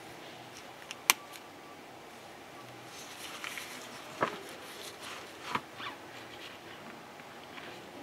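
Handling noise of gloved hands turning a wristwatch: soft fabric rustling with a few sharp clicks and taps, one about a second in and a few more between four and six seconds in.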